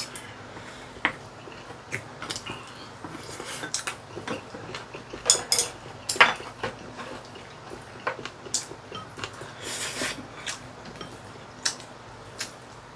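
Chopsticks and spoons clicking and scraping against ceramic bowls while eating, at irregular intervals.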